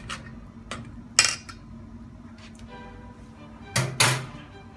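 Metal spoons clinking and scraping against a stainless steel mixing bowl as a spoonful of thick sauce is scraped off into it. Several sharp clinks, the loudest about a second in and a close pair near the end as a spoon is laid against the bowl's rim. Faint background music underneath.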